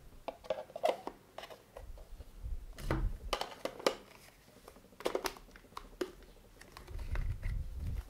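Plastic parts of a handheld car vacuum cleaner being handled and put back together: a series of light plastic clicks and scrapes as the filter goes into the clear dust cup and the cup is fitted onto the motor body. There are dull low bumps about three seconds in and again near the end.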